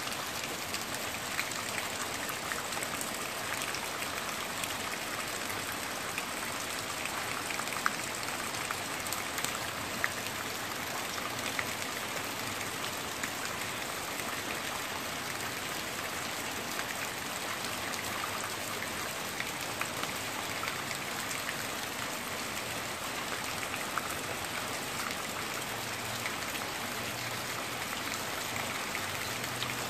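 Steady rain falling on trees and foliage, a continuous hiss with scattered sharp ticks of drops striking nearby.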